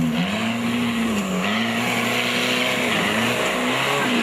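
Off-road 4x4's engine revving up and down over and over, its pitch swinging about once a second. A steady hiss comes in about a second and a half in.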